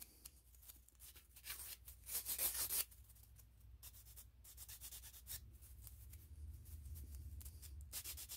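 Small needle file rasping on the cut end of a wooden popsicle stick, smoothing its rough edges in several short runs of quick, faint scratchy strokes, the loudest about two seconds in.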